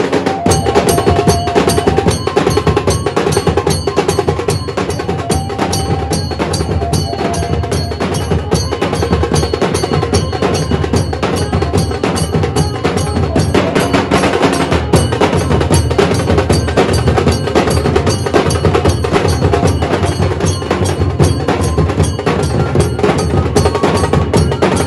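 A group of large barrel-shaped dhol drums beaten with sticks in a fast, dense, steady rhythm, loud throughout.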